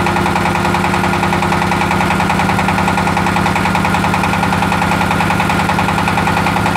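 24 hp diesel engine running steadily under load, driving a baling press as its press plate rises, with a fast, even chugging.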